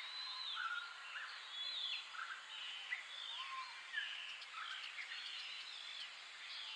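Several birds chirping and calling, short sliding notes that overlap, over a steady background hiss.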